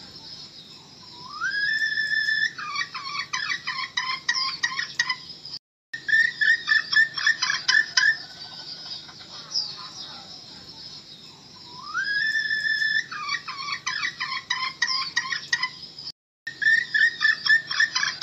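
Red junglefowl hen calling as a trapping decoy: a rising note that holds, then a fast run of short clucks, a short break, and another run of clucks. The whole phrase comes twice, the same each time, as a looped recording.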